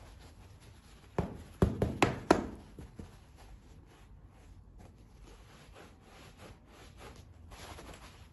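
Handling of a pair of fur boots: a quick run of sharp knocks and taps between about one and two and a half seconds in, then soft rubbing and rustling of the fur under the hands.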